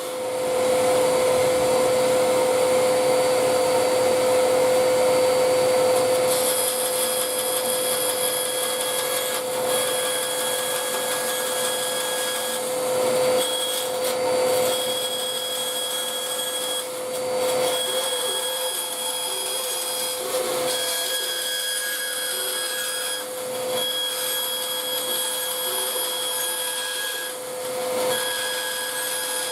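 Bandsaw running and cutting a guitar fretboard blank to shape, with a steady motor hum and blade noise that shifts from time to time as the wood is fed. It is loudest in the first few seconds.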